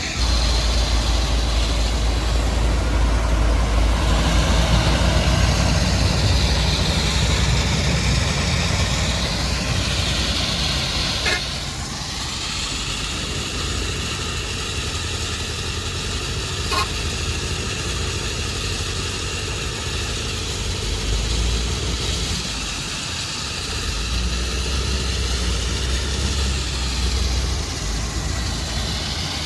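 Heavy diesel earthmoving machinery running steadily with a deep engine rumble and a higher whine that rises and falls as it works. Two brief sharp clicks stand out in the middle.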